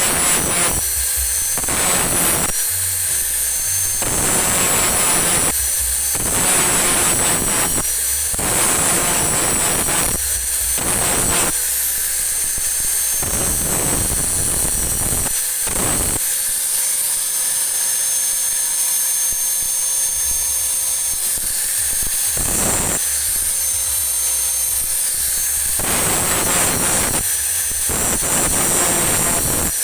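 Electric grinder running with a steady high whine, repeatedly bearing on metal in noisy passes of a second or two, smoothing built-up weld on worn sprocket teeth.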